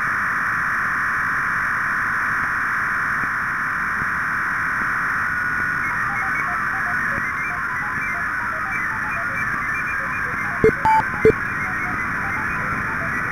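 Shortwave receiver audio of two digital-mode signals sharing one frequency: the steady hiss-like band of a FreeDV 700D signal, with the stepping tones of a ROS signal hopping over it from about six seconds in. A few short beeps sound about eleven seconds in.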